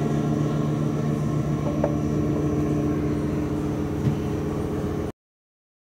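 Steady low-pitched machine hum of running shop machinery, with a faint click or two. It cuts off abruptly to dead silence about five seconds in.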